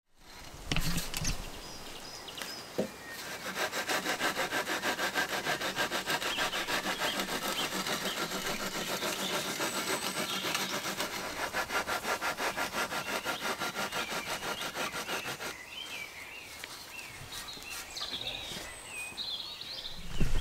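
A spirit level drawn back and forth in a sawing motion across wet concrete, screeding it level: a fast, even rasping scrape of several strokes a second that stops a few seconds before the end. A single knock about a second in.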